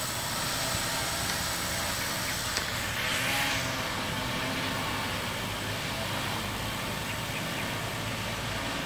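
Electric rotors of a crop-spraying quadcopter drone buzzing steadily as it hovers, with a brief swell about three seconds in.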